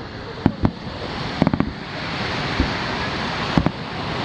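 Aerial fireworks shells bursting: about eight sharp bangs at uneven intervals, some in quick pairs and a short cluster, over a steady wash of noise from the surf.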